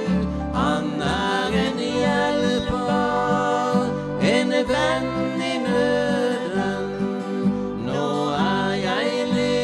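A woman singing a gospel song, accompanied by acoustic guitar and piano-accordion chords.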